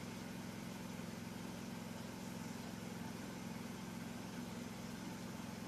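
A steady low droning hum, like a motor or engine running, holding an even level throughout with no distinct clicks or cuts.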